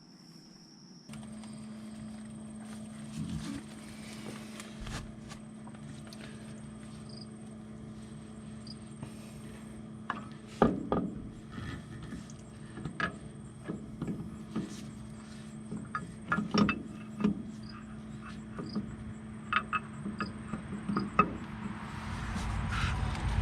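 Scattered metal clinks and knocks of a hydraulic pump and tools being handled while the pump is worked into place on a Farmall 460 tractor, over a steady low hum that starts about a second in.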